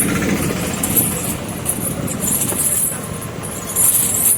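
Steady road-vehicle noise: the even hum and hiss of traffic or of a moving vehicle.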